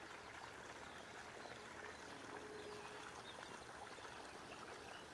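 Faint, steady outdoor background hiss with no distinct event.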